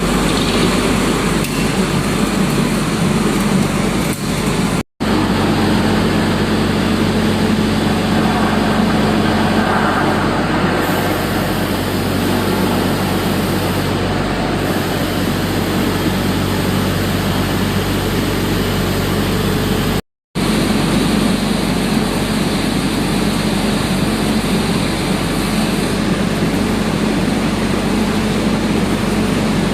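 The Cummins diesel engine of a hydraulic anchor drilling rig running steadily under power, a continuous drone. It cuts out briefly twice, about five and twenty seconds in.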